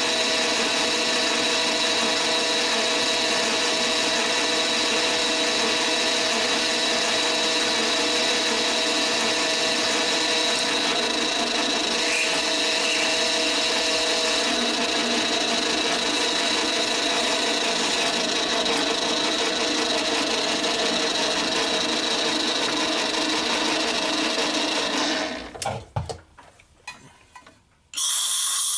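Mini lathe running steadily with a constant motor and gear whine while boring a brass cylinder. About 25 seconds in it is switched off and spins down. Near the end there is a short hiss from a compressed-air blow gun clearing chips.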